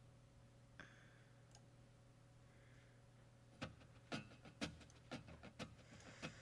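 A faint steady hum. About halfway through, a run of sharp, separate clicks starts, roughly two a second.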